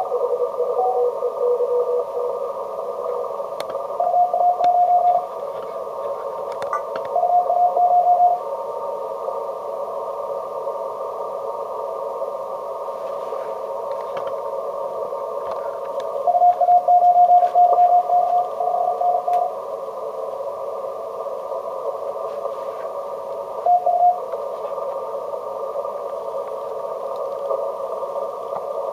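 Yaesu FT-950 HF transceiver receiving Morse code (CW) on the 15-metre band through a narrow CW filter: steady band hiss with several bursts of keyed beeping tones, the longest about halfway through.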